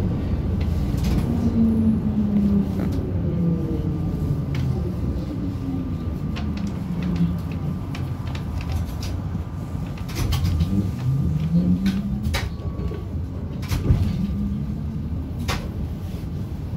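ZiU-682G trolleybus running, heard from inside the cabin: the traction drive's whine falls slowly in pitch as it slows, then rises again about ten seconds in as it picks up speed, over a steady rumble. The body and fittings give scattered knocks and rattles, the sharpest a little before the end.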